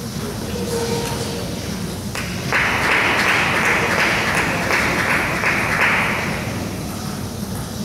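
Spectators clapping after a point in a table tennis match, starting about two seconds in, lasting about four seconds and then fading.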